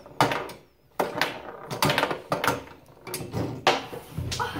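A tabletop mini foosball game in play: an irregular run of sharp plastic clacks and knocks as the rods are spun and pushed and the players strike the ball, about ten in all.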